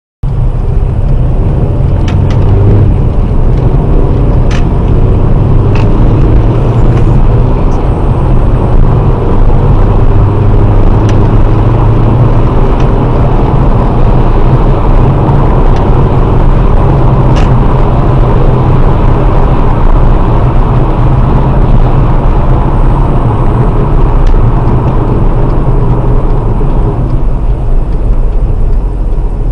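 Car driving on the road, heard from inside the cabin: a loud, steady low rumble of engine and tyre noise that cuts in abruptly at the start, with a few faint clicks scattered through it.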